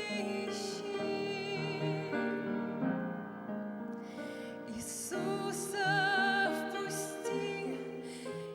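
Slow gospel song: a woman singing long, high notes with vibrato over a soft instrumental accompaniment.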